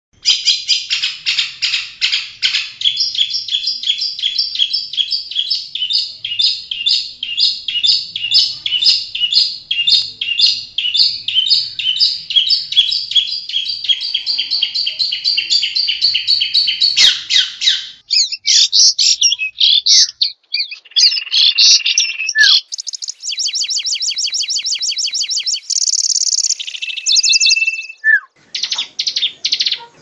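Long-tailed shrike (cendet) singing vigorously: a long run of rapid, evenly repeated high notes, several a second, for about the first seventeen seconds, then breaking into varied phrases and fast trills.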